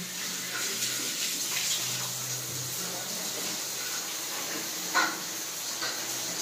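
Water spraying under mains pressure from the open body of a Jaquar 5-way wall diverter with its cartridge removed, splashing across ceramic wall tiles and over a hand held at the opening. A short sharp click about five seconds in.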